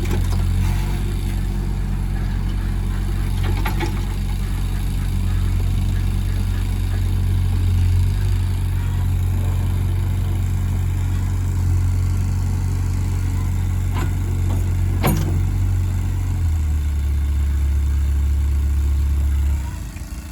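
Excavator's diesel engine running steadily while working, with a few sharp knocks. About three-quarters through, the engine note settles to a lower steady hum, then the sound drops away abruptly just before the end.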